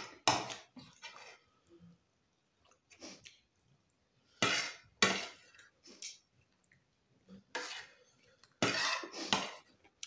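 Metal spoons scraping and clinking against china plates and a serving dish, in short, irregular bursts.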